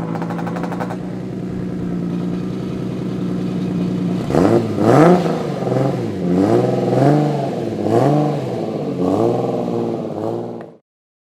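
Single-turbo Toyota Supra 2JZ-GTE straight-six idling steadily, with a brief rapid clatter at the start. About four seconds in it is blipped in a quick series of revs, each rising and falling in pitch. The sound cuts off suddenly near the end.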